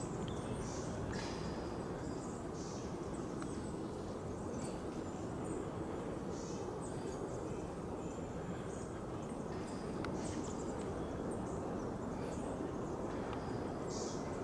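Steady outdoor background noise: an even low rush with faint, scattered high chirps or rustles.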